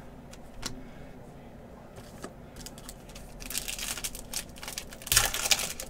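A foil trading-card pack being crinkled and torn open by hand, in short rustling spells from about three and a half seconds in, loudest near the end.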